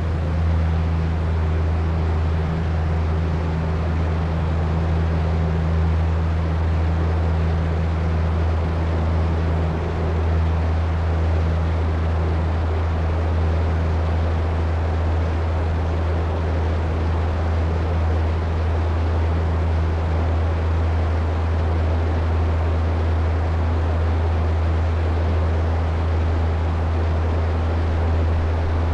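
Ferry engines running with a steady low hum, over the rushing of wind and water.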